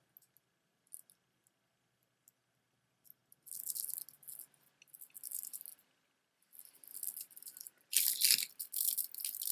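Strung stone-chip beads rattling and clicking against each other as beaded jewelry is handled, in short bursts starting about three and a half seconds in and loudest near the end.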